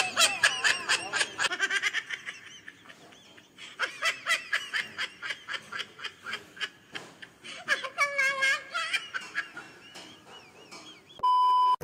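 Hearty laughter in several runs of quick 'ha-ha' bursts with short pauses between, ending in a brief steady electronic beep near the end.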